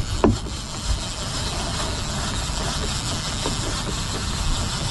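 Yamaha 300 outboard running at trolling speed, a steady engine drone under wind and water noise, with a short rising-and-falling tone about a third of a second in.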